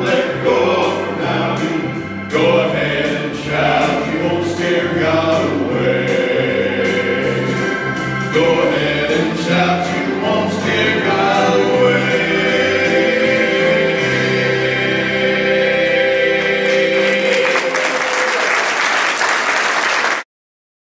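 Gospel vocal group singing in harmony over a band with drums, building to a long held final chord. Applause swells over the last few seconds, and the sound cuts off suddenly about 20 seconds in.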